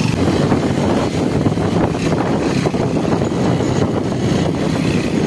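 Small motorcycle running steadily along a rough dirt road, its engine mixed with wind noise on the microphone.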